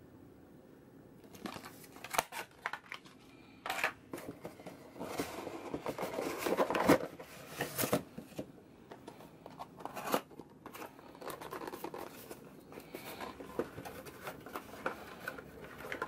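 Plastic and paper packaging handled and crinkled while unwrapping: irregular rustling, crackling and clicks, starting after about a second and busiest around the middle.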